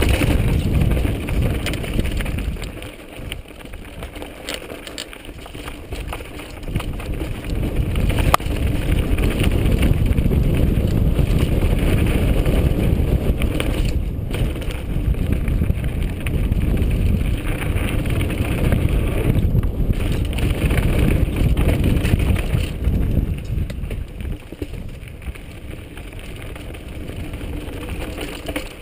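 Mountain bike descending a rocky dirt trail at speed: wind on the bike-mounted camera's microphone, with knobby tyres rolling over loose stones and the bike rattling, and a sharp knock about eight seconds in. The noise eases off for a few seconds twice, then picks up again.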